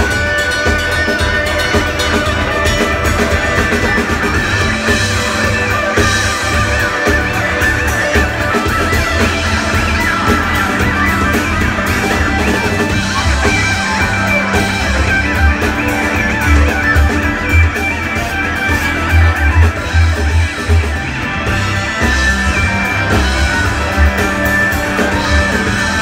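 Live rock band playing in a bar, an electric guitar over a steady, deep bass line, recorded from among the audience.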